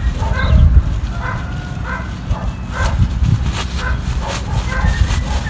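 An animal calling over and over in short pitched yelps, about two a second, over a low rumble. A few sharp crinkles of a plastic bag being handled come in the middle.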